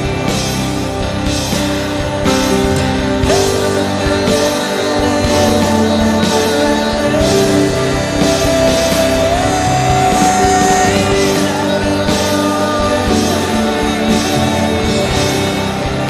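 Live worship band playing a steady rock beat under long held melody notes, between sung lines.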